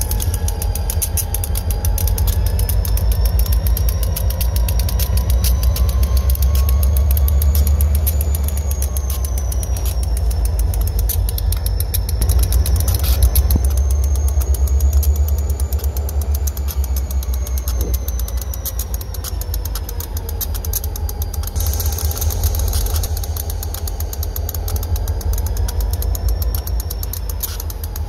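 Diesel freight locomotive running at low speed: a steady low engine rumble with a faint whine that slowly wavers up and down in pitch, and an occasional light knock.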